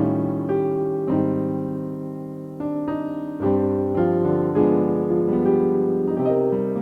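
Slow, lyrical piano melody over held chords, with new notes struck every second or so.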